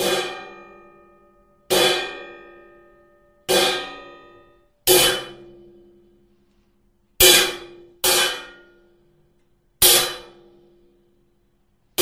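Choked cymbal hits on Masterwork crash cymbals: seven crashes struck with a drumstick, each stopped by the player's hand or arm so it dies away within a couple of seconds instead of ringing on, giving a short, punchy crash.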